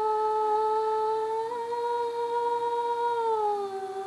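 A girl's voice holding one long note unaccompanied, at the end of a sung line; the pitch steps up slightly about a second and a half in and slides down near the end.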